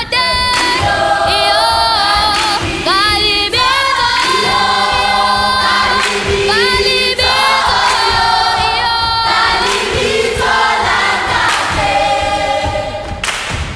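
Children's choir singing, several voices holding and gliding between notes, until about a second before the end.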